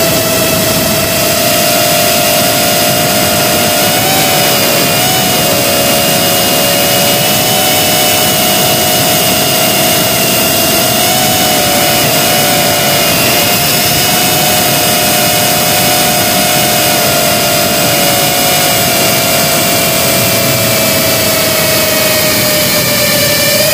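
Brushless motors and propellers of a GEPRC CinePro 4K cinewhoop FPV drone whining steadily in flight, heard through the drone's own camera over a loud hiss of wind and prop wash. The whine is several close tones that drift apart and back together a few times as the throttle changes.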